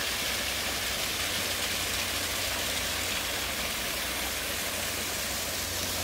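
Small waterfall with a thin stream of water pouring down a rock face into a pool: a steady, even hiss of falling and splashing water.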